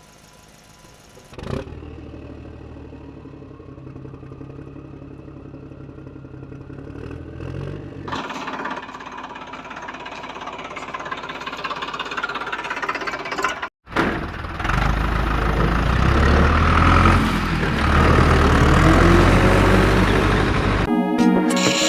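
Engine sounds of heavy machinery, a tractor or backhoe loader, coming in with a thump about a second and a half in and getting louder and rougher in stages. There is a sudden break about two-thirds of the way through, and music starts right at the end.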